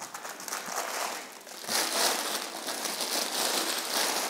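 Clear plastic bag crinkling as a pistol wrapped in it is handled and lifted out of its case, louder from about two seconds in.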